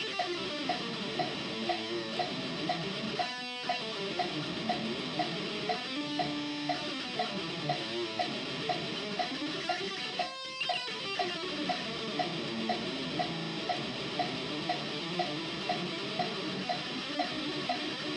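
Electric guitar picked in fast minor-scale runs that climb and fall in repeating sweeps, over a metronome clicking about twice a second (120 bpm).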